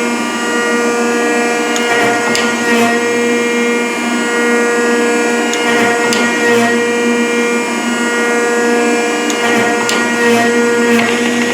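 Rockford hydraulic planer running and taking cuts: a steady hydraulic drone with a constant pitched hum, and brief sharp clicks every few seconds, often in pairs about a second apart.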